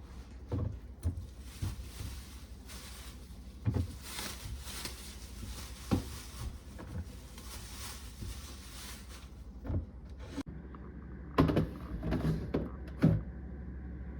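Scattered knocks and clunks of groceries being handled and put away into cupboards and the fridge, over a steady low hum; the loudest clatter comes near the end.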